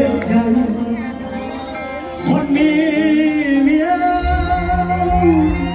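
Live band playing Isan-style Thai popular music through a loud stage PA, with a male singer's voice carrying the melody.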